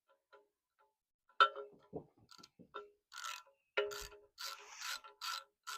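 Metal hand tools clinking and rasping on steel fittings in short separate strokes, with a sharp ringing clink about a second and a half in and a run of short scraping rasps over the last few seconds.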